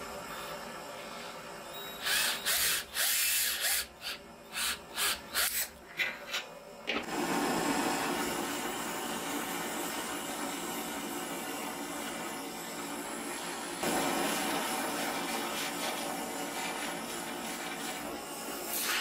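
Cordless drill run in a series of short bursts, turning a rod to wind steel wire into a coil spring. Then a gas blowtorch flame hisses steadily while heating the spring red-hot, getting louder about two-thirds of the way through.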